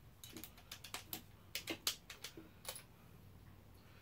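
Drill chuck being worked by hand to release a quarter-inch bit: a run of faint, irregular clicks that stops near the end.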